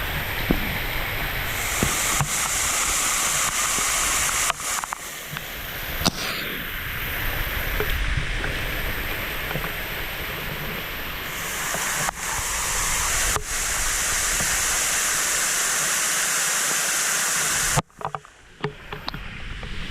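A waterfall's rushing water, a steady loud noise, with a few sharp knocks and a sudden brief dip near the end.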